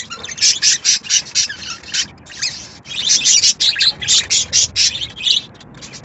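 Budgerigars chirping rapidly, a fast string of short, high calls with a brief break about two seconds in, quieter near the end.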